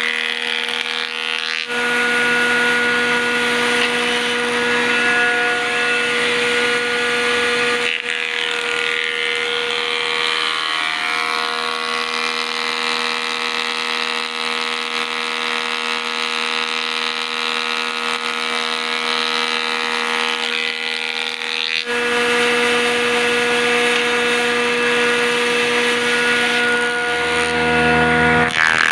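Electric combination woodworking machine running, its side spindle cutter spinning as wood is fed into it, with a steady whine. The sound changes abruptly a few times.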